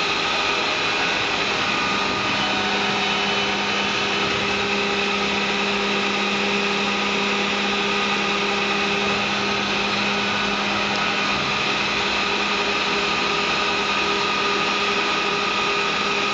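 A CME FCM 5000 travelling-column CNC milling machine running under power: a steady mechanical hum with several held tones over a noisy hiss. A stronger low tone joins about two seconds in.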